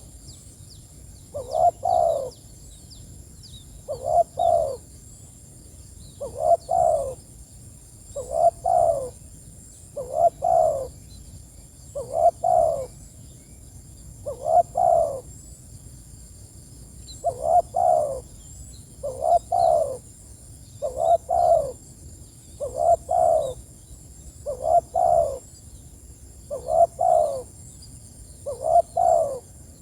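Spotted dove (tekukur) cooing, a short phrase of two or three falling coos repeated about every two seconds. Faint high chirps of small birds sound behind it.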